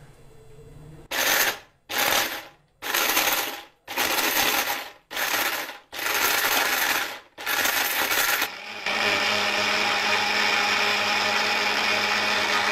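Orpat 1200-watt mixer grinder grinding whole turmeric pieces in its small stainless steel jar. It is run in seven short pulses and then continuously from about two-thirds of the way through, the pieces rattling in the steel jar as they are ground to powder.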